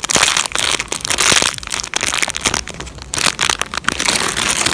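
Clear plastic packaging of squishy toys crinkling and crackling as it is handled and squeezed, loud and continuous with many sharp crackles.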